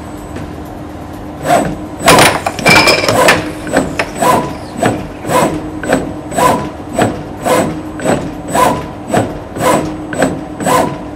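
Air hockey table's blower humming steadily, then the robot's Festo T-Gantry servo-driven carriage sweeping the mallet back and forth in a regular stroke about twice a second. A cluster of louder knocks comes around two to three seconds in.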